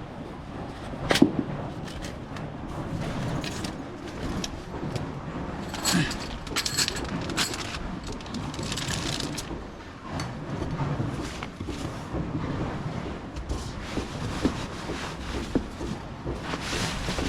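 Camping gear being handled and moved about: rustling with scattered knocks and clicks, a sharper knock about a second in.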